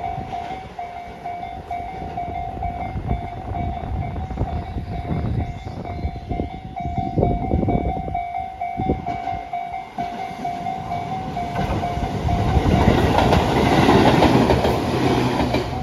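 Japanese railroad crossing warning bell ringing in a steady repeating pattern while a train passes, its wheels clacking over the rail joints. The train noise builds and is loudest near the end.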